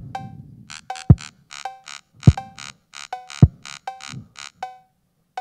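Electronic music from the Kulbuto, a custom image-driven synthesizer: four low electronic thuds about a second apart, many short hissing ticks and short pitched blips, layered in unsynchronised rhythms that make a polyrhythm.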